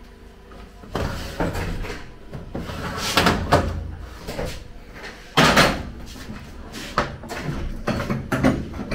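Kitchen clatter: a run of knocks and bangs of things being handled, the loudest about five and a half seconds in.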